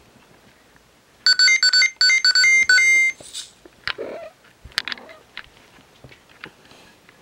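A short electronic ting-a-ling jingle: bright beeping notes in a quick run lasting about two seconds. It is followed by scattered light clicks and taps and a brief low chirp.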